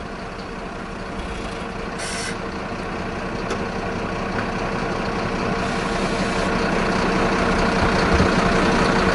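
Large diesel vehicle engine idling steadily, its hum growing slowly louder, with a brief hiss about two seconds in.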